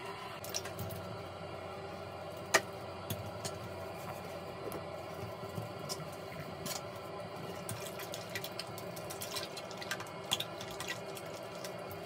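Toilet wand with a disposable sponge head scrubbing a wet porcelain toilet bowl: watery swishing and splashing, with scattered clicks and knocks of the plastic wand against the bowl. The loudest is a single sharp knock a little over two seconds in.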